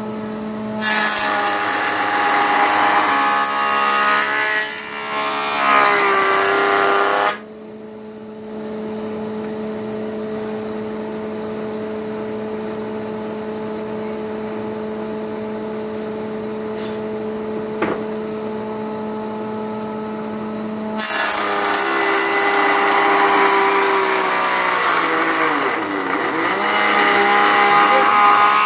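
Electric jointer running with a steady motor whine, planing a board in two passes. Loud cutting noise comes from about one to seven seconds in and again from about 21 seconds to the end, with the machine running freely in between. Late in the second pass the motor's pitch briefly sags under the load of the cut.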